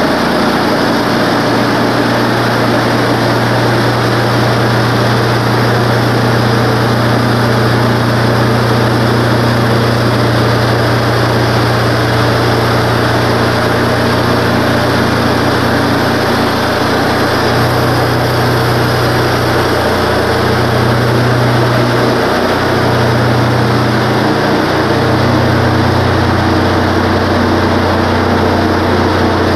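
Wood-Mizer LT15 portable band sawmill running at full throttle, its gas engine driving the band blade through a pine log with a steady rushing saw noise. In the second half the engine note shifts and wavers as the load on the blade changes.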